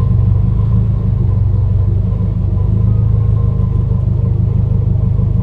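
Compound-turbocharged Subaru flat-four engine running steadily as the car rolls slowly, heard from inside the cabin as a loud, even low rumble with no revving.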